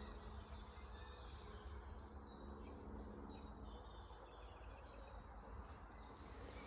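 Quiet background with a steady low rumble and scattered faint, short high-pitched bird chirps.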